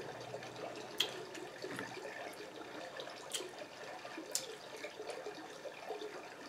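Quiet, wet sounds of a seafood boil being picked at by hand and eaten, with three sharp clicks.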